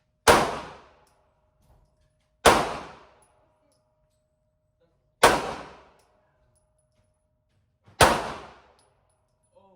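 Four gunshots, spaced two to three seconds apart, each with a short echoing decay.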